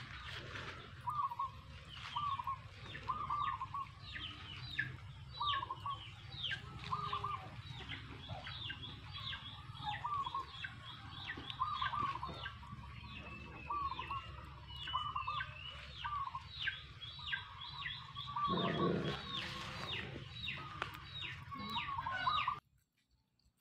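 Birds calling: a short call repeated every second or so and many quick falling chirps, over a low steady hum. A lower, louder call comes about nineteen seconds in, and the sound cuts off abruptly shortly before the end.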